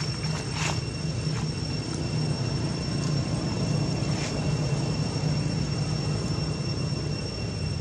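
Steady low mechanical rumble with a thin, high, steady whine above it and a couple of faint clicks.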